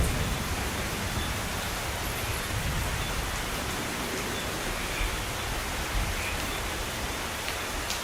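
Steady rain falling, an even hiss, just as a thunder rumble dies away at the start.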